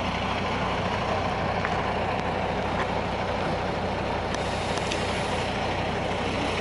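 Steady drone of a vehicle engine running, with a constant low hum under an even rushing noise and a few faint ticks.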